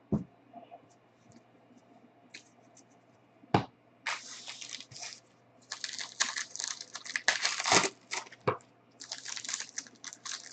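Plastic wrapping crinkling and tearing as a sealed trading-card box is opened by hand, in several spells of crackling, after two short knocks.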